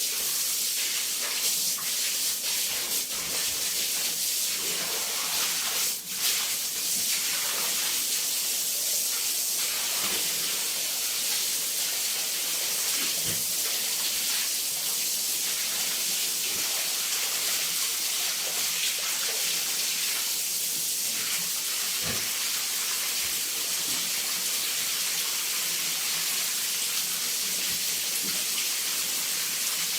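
A steady hiss, strongest in the upper range, with a few faint short knocks scattered through it.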